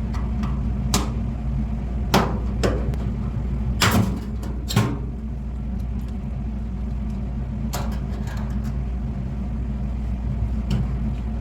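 Commercial food waste disposer (Swany 300) motor running with a steady low hum, with several sharp knocks and clatters over it, loudest about four seconds in.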